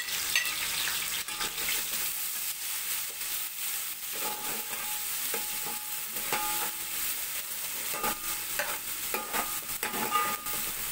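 Ginger-garlic paste frying in hot oil with onions and green chillies, sizzling steadily in a metal pot, with a slotted metal spatula stirring and scraping against the pot's bottom.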